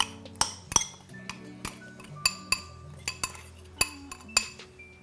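A utensil knocking and scraping against a glass bowl to get the marinade out: a run of sharp clinks, about two a second. Background music plays underneath.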